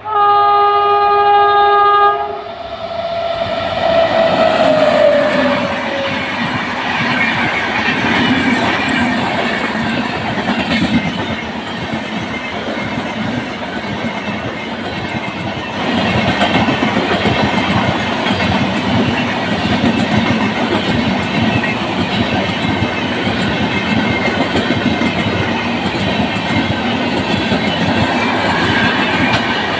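Indian Railways electric locomotive sounding its horn for about two seconds, then a short falling tone as it comes by. An express train of passenger coaches passes at speed: a steady rush of wheel and rail noise with clickety-clack over the rail joints, growing louder about halfway through.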